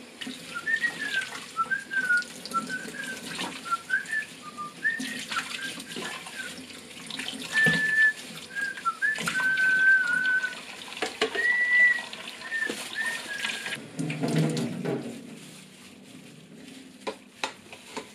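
A person whistling a wandering tune over a tap running into a stainless steel sink, with dishes clinking as they are washed. The whistling stops about 13 seconds in, leaving the running water and a few knocks.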